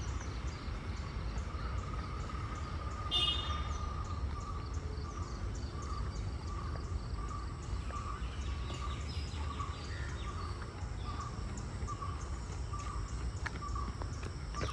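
Park ambience: birds calling over a low steady rumble, one bird repeating a short single note about once a second, and a brief louder chirp about three seconds in. Faint regular high ticking sits behind it.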